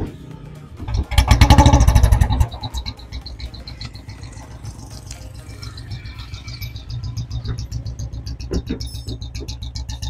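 A Royal Enfield Bullet 350's single-cylinder engine starts about a second in and runs loudly for a moment. It then settles into a steady thumping idle through a silencer fitted with a homemade whistle.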